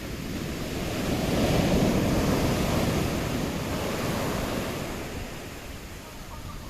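Sea waves breaking on the shore: a surge of surf swells up about a second in, is loudest around two seconds, and slowly washes out. Wind buffets the microphone throughout.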